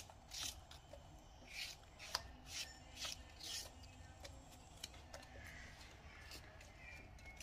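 Raw vegetable slices being laid and arranged by hand in a clay tagine: a few faint, brief brushing swishes and light clicks.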